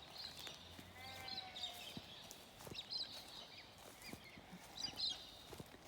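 Small birds chirping faintly in short scattered calls, with one longer call about a second in and a few soft ticks between.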